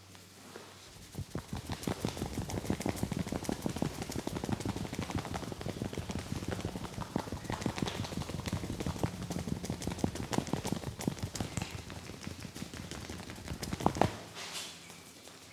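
Rapid percussive tapping of a head massage: the masseur's hands slap the head in a fast, even run of strokes, several a second, with two louder strokes near the end.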